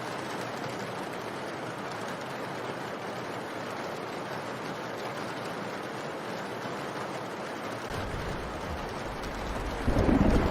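Steady, even rain noise. About eight seconds in a deep rumble joins it, swelling to a louder burst just before the end.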